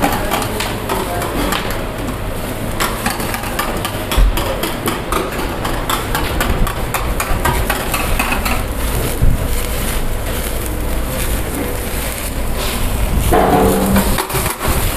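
Charcoal kebab grill at full fire: flames crackling over hot coals, with frequent clicks and knocks of metal skewers against the grill bars over a steady low rumble.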